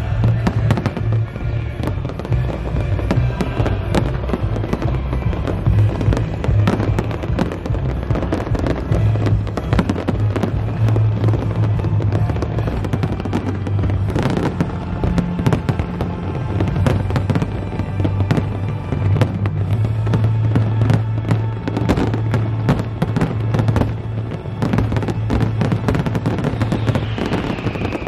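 Aerial fireworks display: shells bursting in rapid, overlapping cracks and bangs throughout. Music with a steady deep bass plays underneath.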